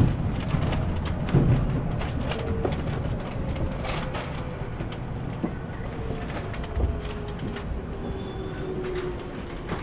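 JR Central 313 series electric train running on rails, heard from inside the car: a low wheel rumble with scattered clicks and knocks, and a thin motor whine sliding slowly down in pitch as the train slows for a station.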